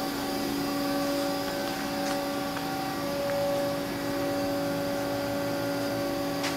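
Haas SL30T CNC lathe running under power: a steady mechanical hum of several held tones, with a couple of faint clicks.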